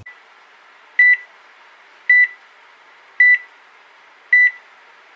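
Heart-monitor beep sound effect: four short, high electronic beeps about a second apart over a faint hiss.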